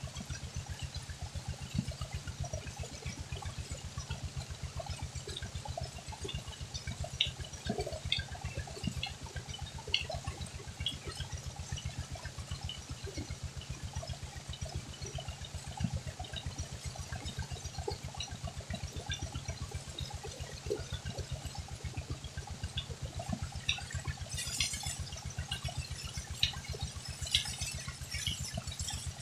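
Tubewell water gushing from the outlet pipe and splashing onto a woven cot and the person sitting on it, over the steady rapid low beat of the engine driving the pump. The splashing grows harsher near the end as he lies back under the stream.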